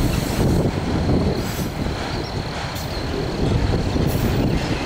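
A Norfolk Southern autorack freight train's cars rolling slowly past on steel wheels, with a steady rumble of wheels on rail.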